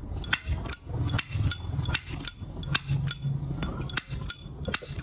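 1972 Zippo lighter's lid being flipped open and snapped shut again and again, a run of sharp metallic clacks with a short ring, about two or three a second. This is the lighter's original click, the sign of an unaltered hinge and cam.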